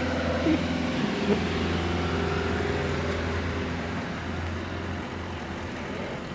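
Road traffic: a motor vehicle engine running with a steady low hum, easing off slightly toward the end. Two short sliding squeaks come about half a second and a second and a half in.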